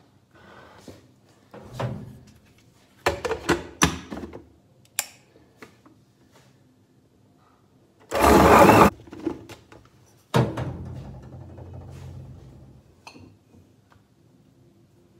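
Spoon knocking and scraping against the ice-cream tub and blender jar during the first few seconds. Then an electric blender runs in two short pulses, blending milk, banana and ice cream: the first, the loudest sound, lasts under a second, and the second starts about two seconds later and fades out over a couple of seconds.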